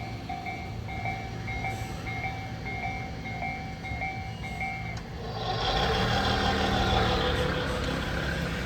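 Electronic warning beeps pulse steadily at two pitches and stop about five seconds in. A vehicle's running noise then swells up, louder than the beeping.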